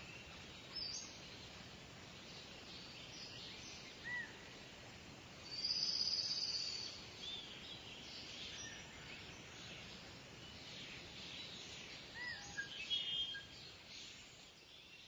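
Ambient nature soundscape: birds chirping now and then over a steady background hiss, with a louder, buzzy high trill about six seconds in. The sound fades away toward the end.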